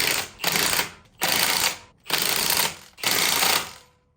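Impact wrench hammering the wheel's lug bolts tight in five short bursts, about one a second.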